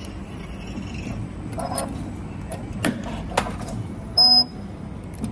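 CNC spring-forming machine bending 2.5 mm wire into a clamp: steady mechanical running with sharp clicks of the tooling. Two brief buzzing tones, one under two seconds in and a louder one about four seconds in.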